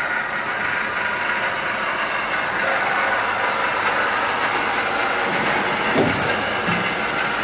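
Veneer peeling line running: electric motors and the log chain conveyor make a steady mechanical hum and clatter, with a few sharp clicks and a short knock about six seconds in as the log is carried toward the lathe.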